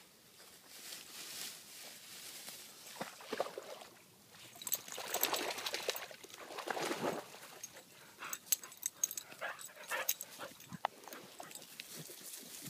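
A dog splashing through water at a pond's edge, with a loud run of splashing about five seconds in, then crackling and rustling as it scrambles out through grass and brush.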